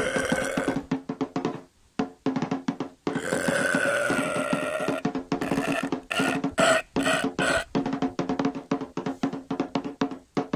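Background music: a fast, even percussion beat over a steady low drone.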